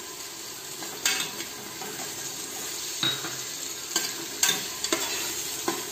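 Onion-tomato masala sizzling in oil in a stainless-steel pressure cooker, with curd just added. From about a second in, a spatula stirs it, scraping and knocking against the pot several times.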